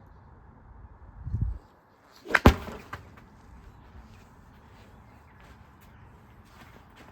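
A low dull thump, then about a second later a single loud, sharp bang, followed by faint scattered clicks and rattles.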